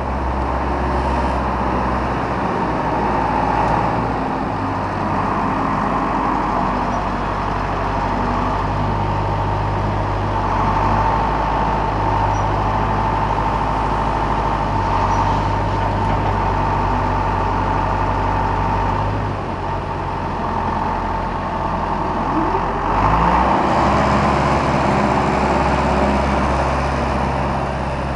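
Heavy diesel engine running close by, its revs stepping up and down several times with a steady whine over it; the revs climb and it grows louder about two-thirds of the way through. It is a tractor loader at work loading a lorry's trailer.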